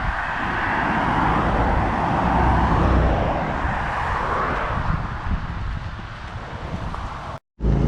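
A car on the move: steady road and wind noise over a low rumble, cut off suddenly near the end.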